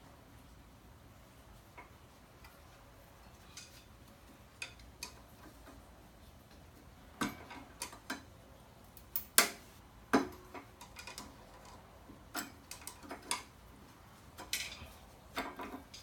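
Irregular clicks and knocks of a brake pad being worked loose and pulled out of a 2017 Indian Chieftain's brake caliper, with a cluster of sharper knocks about halfway through.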